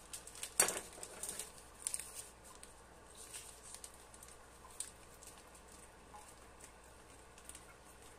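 Thick creamy mushroom sauce boiling hard in a pan, its bubbles bursting in irregular soft pops and clicks, thickest and loudest in the first two seconds, then thinning out to occasional pops.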